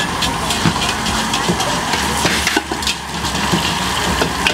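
A metal utensil clanking and scraping in a wok several times a second, with light frying. Underneath is the steady rushing noise of lit gas wok burners.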